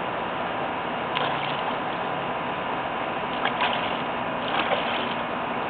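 A child's hands splashing pool water from a kiddie pool onto a plastic slide, a few light splashes over a steady background hiss.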